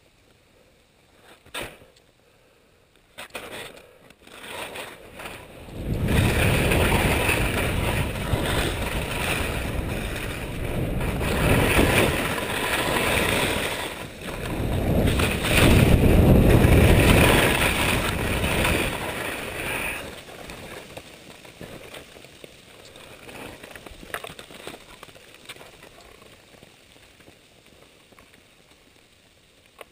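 Edges scraping and sliding on snow during turns down a steep couloir, with wind rushing over the camera microphone. It is loud from about six seconds in until about twenty seconds, with a short lull partway, then fades to a quieter hiss.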